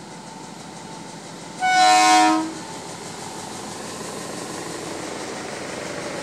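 Sri Lanka Railways M8 class locomotive No. 844, an MLW MX620 diesel-electric, sounds its air horn once, about a second and a half in: a blast of about a second with several notes at once. Around it, the locomotive's diesel engine and wheels run steadily as it passes close by.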